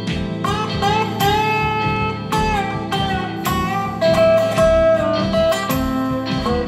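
Band rock music in an instrumental break: a lead guitar plays a melody with slides and bent notes over bass and a steady drum beat.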